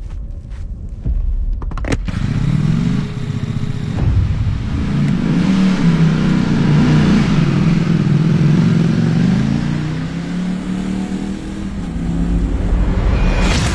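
Ducati Panigale V4's 1103 cc V4 engine, heard from about two seconds in, running and revving with its pitch rising and falling. Near the end it accelerates hard with a sharply rising pitch.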